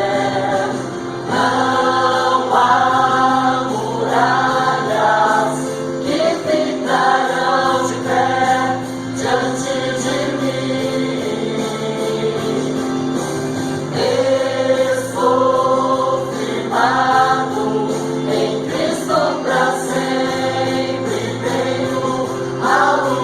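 Christian gospel song sung by several voices in sung phrases of a few seconds each, over steady held accompaniment notes.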